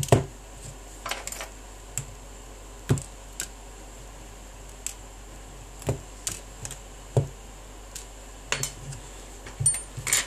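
Irregular clicks and taps of an opened smartphone's plastic housing and small repair tools being handled and set down on a rubber work mat, about a dozen in all.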